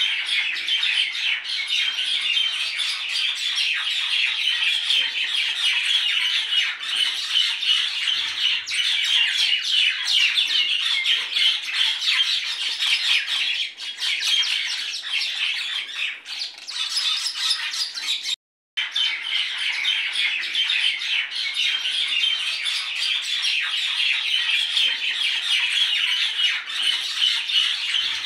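Dense, continuous chatter of a flock of small birds, many overlapping chirps and squawks. It cuts out for a moment a little past halfway, then resumes.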